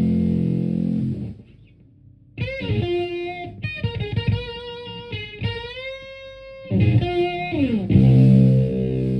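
Stratocaster played through a Univox Superfuzz pedal and a Marshall Plexi amp: a held fuzz chord cuts off about a second in, then after a short gap come single sustained notes bent up in pitch, a slide down, and a loud low chord near the end.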